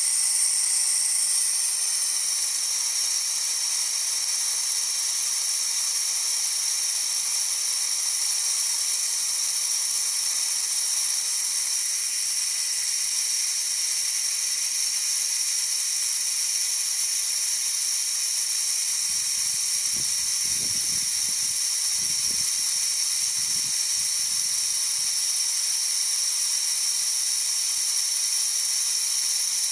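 Steady hiss of compressed air escaping from a Dewalt D55146 air compressor. The tank air is bleeding back past a failed check valve, so the compressor cannot hold pressure.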